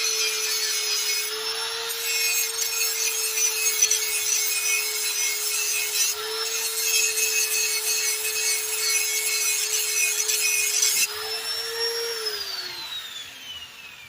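Power grinder sharpening the cutting edge of a steel lawnmower blade: a steady motor whine under a harsh grinding hiss. The grinding stops about eleven seconds in, and about a second later the motor is switched off and winds down with a falling whine.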